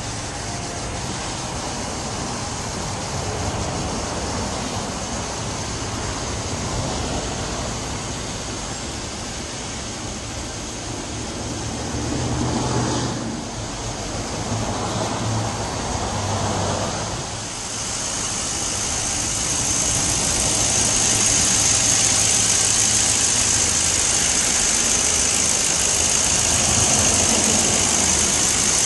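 2006 Chevrolet Avalanche engine idling steadily, with a few short revs around the middle. About two-thirds of the way in, a loud steady hiss joins it.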